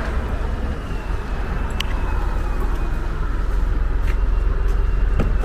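A vehicle's engine running with a low, steady rumble, with a few light clicks.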